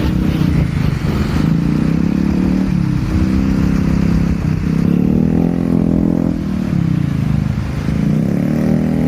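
A bus's engine revving, its pitch rising and falling several times in slow swells.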